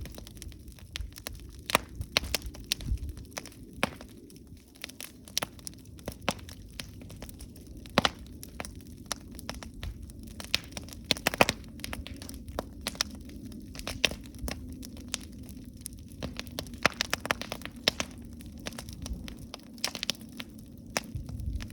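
Wood campfire burning, with irregular sharp pops and crackles over a low, steady rumble of the flames.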